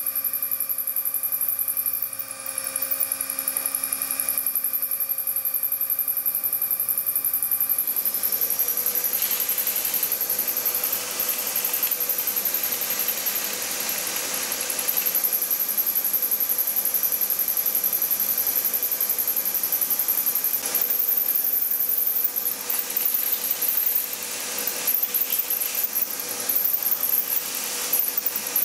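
A milling machine's 12 mm end mill cutting a slot to full depth in a metal block, with a steady whine from the motor and gearing. From about two-thirds of the way in, irregular scraping comes and goes as a brush sweeps the chips off the cut.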